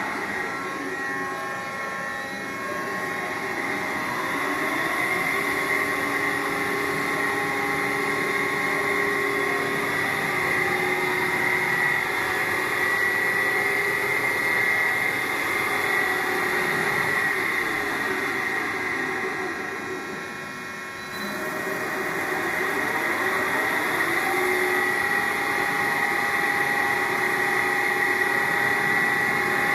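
Cyclone FB 26120 CNC lathe running: a steady motor whine made of several tones, some of them gliding up and down as speeds change. The sound drops briefly about two-thirds of the way through, then picks up again.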